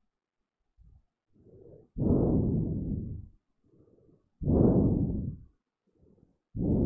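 Breathing straight into a close headset microphone: three loud, muffled exhales about two seconds apart, each following a fainter inhale.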